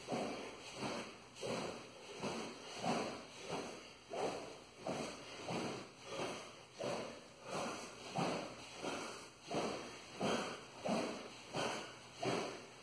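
A two-handed longsword swung through the air in a continuous cutting drill, each cut giving a short whoosh, about two a second in an even rhythm.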